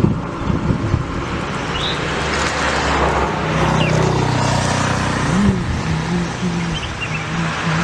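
A motor vehicle's engine running with a steady hum over road noise.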